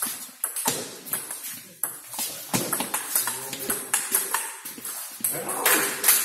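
Table tennis rally: the ping-pong ball clicking back and forth off the paddles and the table in a quick, irregular patter, with voices in the background.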